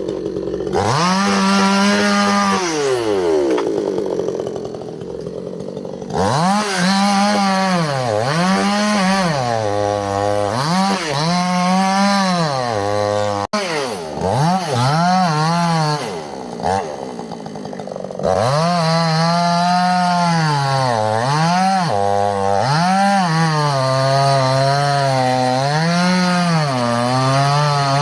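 Two-stroke chainsaw cutting wood, its engine speed rising and dipping again and again as the chain is pushed into the cut and eased off. It drops to a lower, quieter run for a few seconds near the start and again around the middle.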